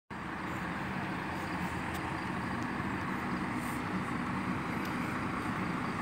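JCB backhoe loader's diesel engine running steadily, a continuous low hum with no change in pitch.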